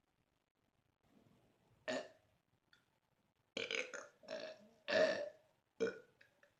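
A man belching on command: one short burp about two seconds in, then a quick run of several short burps, the loudest about five seconds in.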